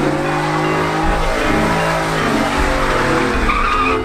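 Pickup truck doing a burnout, its engine held at high revs that rise and fall, with the spinning tyres squealing on the pavement.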